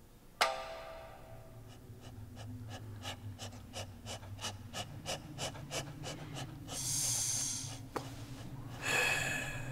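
Film sound effects: a single ringing strike, then a run of fast, even clicks for about five seconds over a low hum, then two long hissing sniffs, from a carved wooden dog figure sniffing around.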